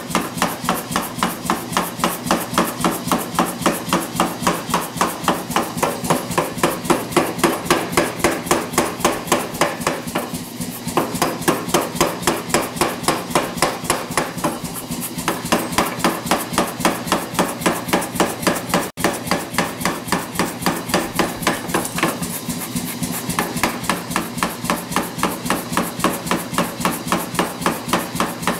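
Power hammer pounding a red-hot 3/4-inch steel bar through a jig to draw out tong reins: a fast, even run of blows, about three a second, over a steady hum.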